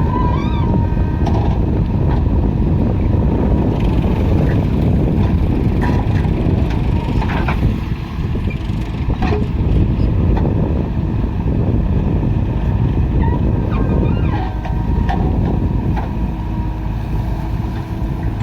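Diesel engines of a backhoe loader and tractors running steadily, with a few short knocks about halfway through.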